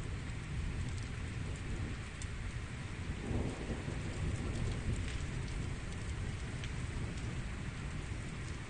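Heavy rain pouring down in a violent thunderstorm, with a low rumble of thunder underneath that swells slightly a little after three seconds in.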